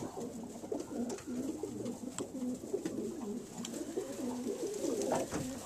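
A loft full of young racing pigeons cooing, several low warbling coos overlapping without a break, with a few faint clicks. The birds are coming into breeding condition and want to mate up.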